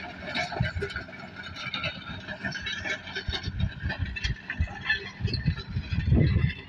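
Farm tractor engine running while ploughing, with uneven low surges in the rumble.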